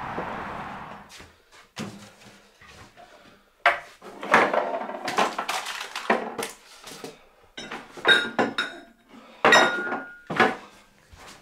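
Crockery and other items knocking and clinking on the shelves of a kitchen cupboard as someone rummages through it: a run of irregular clatters, with a couple of ringing clinks in the second half.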